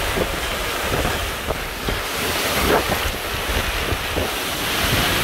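Category 4 hurricane winds and wind-driven rain blowing steadily, with gusts buffeting the microphone in a low rumble.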